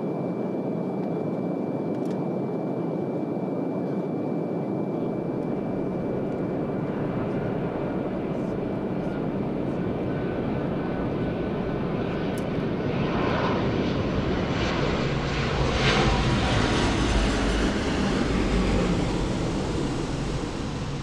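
Jet airliner on final approach, a steady engine noise that grows louder over the last third as it nears, with a thin steady whine in the first half.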